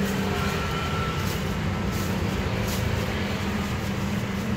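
Steady hum of road traffic, with a few faint light taps.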